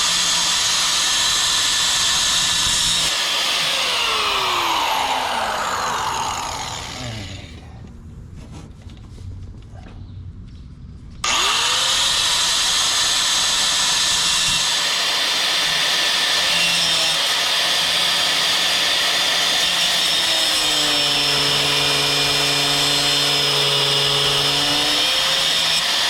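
Angle grinder cutting a steel coil spring. A few seconds in it winds down and stops, falls quiet for a few seconds, then spins back up about eleven seconds in and runs steadily.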